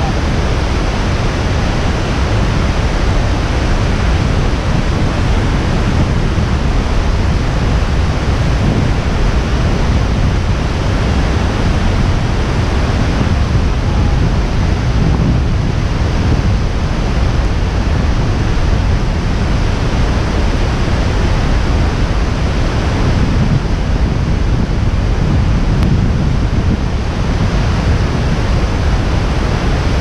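The wide curtain of waterfalls at Iguaçu Falls crashing into the river, heard close up as a loud, steady rush of water.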